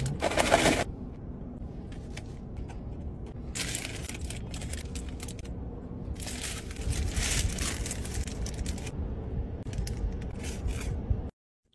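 Paper sandwich wrappers crinkling and a crispy fried chicken sandwich being torn apart by hand. The rustling comes in several spells over a steady low rumble.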